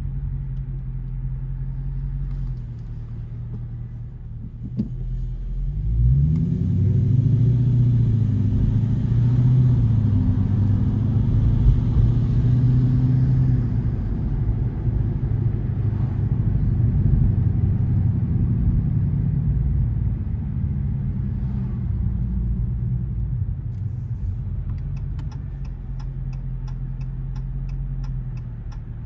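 Car engine and road rumble heard from inside the cabin. About six seconds in the engine pulls up in pitch as the car accelerates, holds, then eases off. Near the end a turn signal ticks about twice a second.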